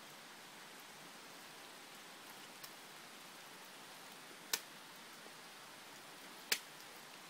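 Steady faint hiss of light rain, with two sharp ticks about two seconds apart in the second half.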